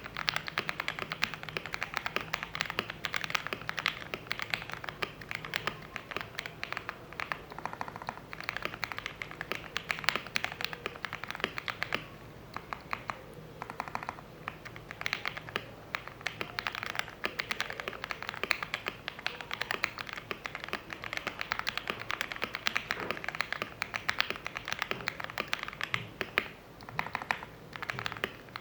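Fast, continuous typing on an E-Yooso Z11 mechanical keyboard with lubed Jixian Matcha Ice linear switches in a foam-modded case: a dense run of key clacks, with a couple of short breaks about halfway through.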